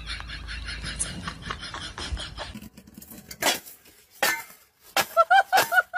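A steel dog bowl clanking and scraping on tiled steps as a puppy stands in it and shoves it along, in several sharp separate clanks. Before that comes a steady low hum, and near the end a quick run of short high-pitched squeaks.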